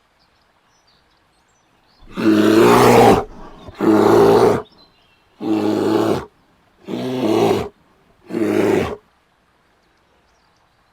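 A bear roaring five times in quick succession, each roar lasting about a second, the first the longest.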